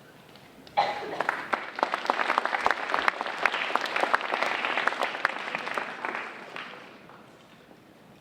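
Audience applauding: the clapping breaks out suddenly about a second in, holds, then dies away over the last couple of seconds.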